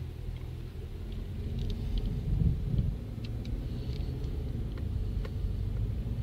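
Car driving on a snow-covered road, heard from inside: a steady low rumble of engine and tyres that swells a little a couple of seconds in, with a few faint ticks.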